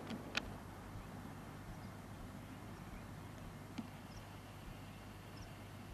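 Quiet outdoor background on an old camcorder: steady hiss and low hum, with a sharp click near the start and another a little before four seconds in. A few faint, short, high chirps come in the second half.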